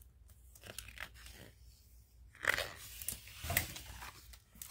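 A page of a hardcover picture book being turned by hand. Faint paper handling, then louder rustling and crackling of the page from about halfway through, with two sharper crackles.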